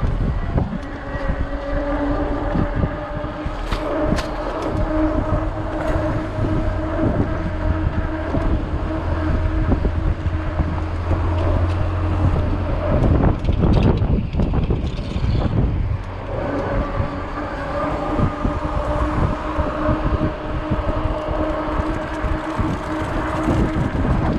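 The electric hub motor of a 48-volt fat-tire e-bike whines at a steady pitch while riding under power, over wind noise on the microphone and the rumble of fat tyres on pavement, with small knocks from bumps. About halfway through the whine stops for a few seconds, then resumes at the same pitch.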